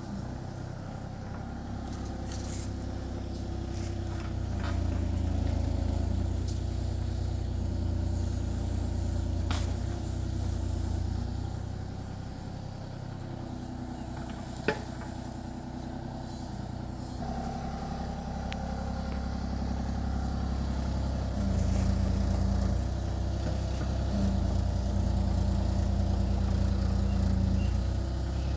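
Kubota KX033-4 compact excavator's diesel engine running under working load, its sound swelling and easing as it digs. There is a sharp click about halfway through.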